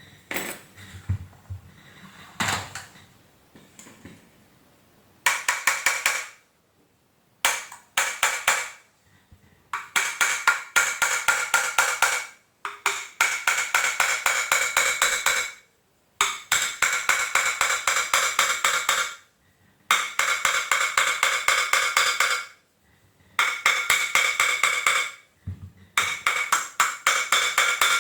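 A few light knocks, then from about five seconds in, repeated bursts of rapid metallic clicking, each lasting a second or three with short pauses between. The clicking has a ringing metal tone and comes from hand work on the vacuum cleaner's motor during disassembly.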